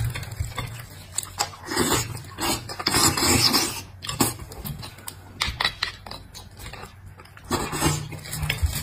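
Close-miked eating sounds: slurping and sucking soft bone marrow from a split roasted bone, with wet chewing and mouth smacks coming in irregular bursts. The loudest stretch is about two to three and a half seconds in.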